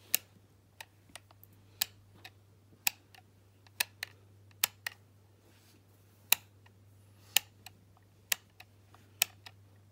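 Sharp plastic clicks from the code-lock dials and button of an LOL Surprise Under Wraps capsule being worked by a child's fingers, one or two clicks a second at uneven intervals, as she tries symbol combinations to open it.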